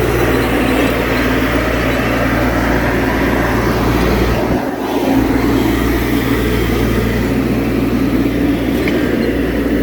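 Skid steer engine running steadily, its level dipping briefly about halfway through.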